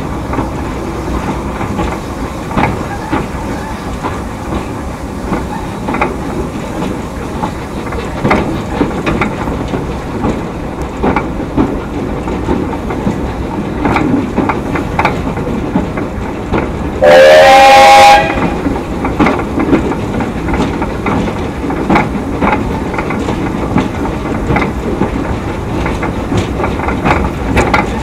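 A 2 ft narrow gauge wood-fired steam train running along the line, its wheels clicking over the rail joints. One steam whistle blast, about a second long and the loudest sound, comes about two-thirds of the way through.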